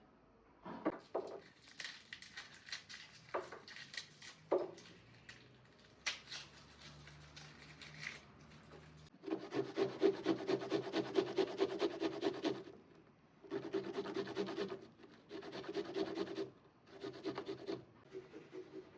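Repeated rasping, rubbing strokes: a continuous run of about three seconds from about nine seconds in, then four shorter bursts with brief pauses between them. Before that, scattered light knocks and scrapes.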